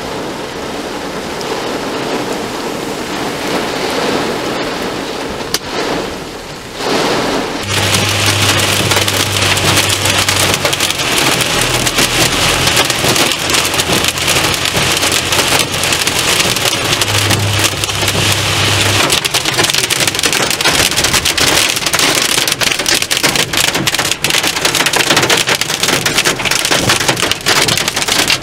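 Heavy rain pouring. About eight seconds in it changes to a denser, louder hiss of rain pelting a car's windshield and body, with a steady low hum from the car underneath.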